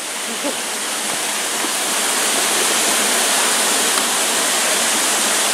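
Water rushing down a wooden log chute at a dam, a steady rush that grows louder over the first couple of seconds and then holds.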